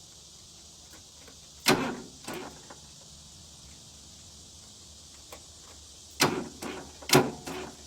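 Four loud clanks with short ringing tails, a pair about two seconds in and another pair near the end, over a steady hiss.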